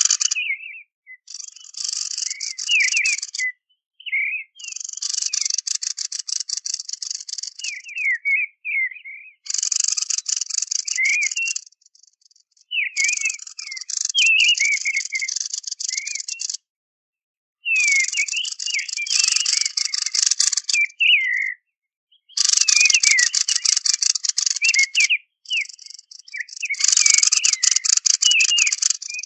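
Recorded bird song played as a hunting lure: repeated bursts of harsh, rattling chatter, each two to three seconds long with short gaps between them, mixed with thin whistled notes.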